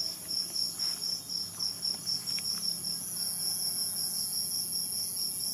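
Crickets chirping in a fast, even pulse, about five chirps a second, over a steady high-pitched insect trill.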